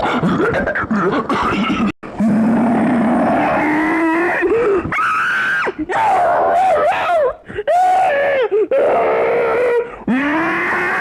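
A person's voice making drawn-out groaning and squealing noises, the pitch sliding up and down, in several long stretches with short breaks between them.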